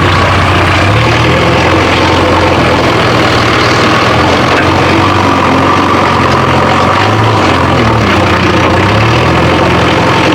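Heavy vehicle engine running steadily at idle, its pitch shifting slightly now and then.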